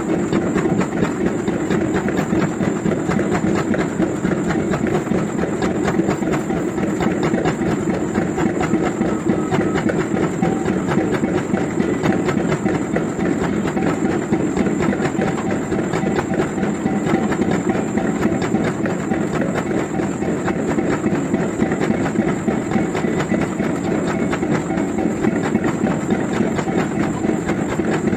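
Liebherr LRH 100 pile-driving rig working, a steady, dense mechanical clatter that holds without a break.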